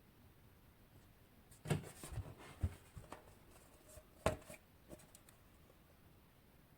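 A scattered run of sharp clicks and knocks, the loudest about a second and a half in and again past four seconds.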